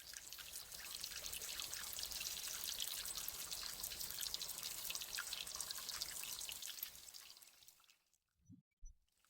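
Running water trickling and splashing, a dense crackly hiss of droplets that fades in and then fades away about seven to eight seconds in.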